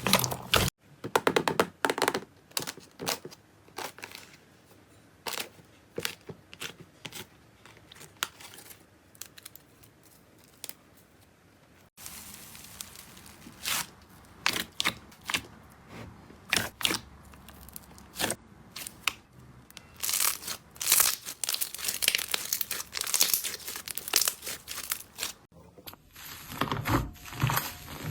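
Slime being squeezed and poked by hand, giving irregular sharp crackles, clicks and pops. The sound is sparse at first and comes thicker and louder in the second half.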